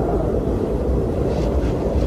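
Strong wind blowing as a steady low rush, with a faint higher hiss swelling briefly about one and a half seconds in.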